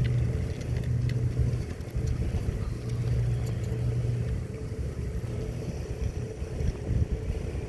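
Steady low motor hum with a little rumble and a few faint clicks; the hum eases off about halfway through.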